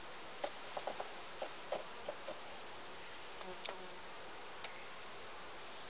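Honeybees buzzing steadily over an open hive. Sharp wooden clicks and knocks come in a quick cluster in the first couple of seconds and again a few times near the middle, as a comb frame is worked loose and lifted out of the hive body.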